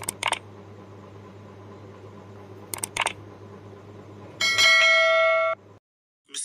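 Intro-animation sound effects: two pairs of sharp clicks about three seconds apart over a low steady hum, then a bright chime of several held tones about four and a half seconds in that rings for about a second and cuts off suddenly.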